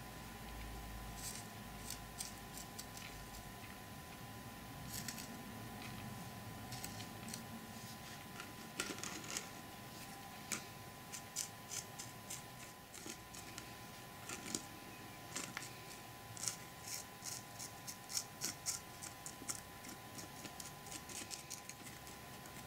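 Faint, irregular small clicks and scrapes of a plastic modelling tool scooping dried tea leaves off a plastic spoon and pushing them into a small model flower bed. The clicks come more often after about nine seconds.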